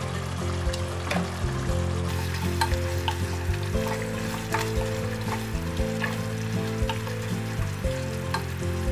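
Masala gravy sizzling in the pan as a wooden spatula stirs and tosses boiled eggs through it, with scattered light taps of the spatula against the pan.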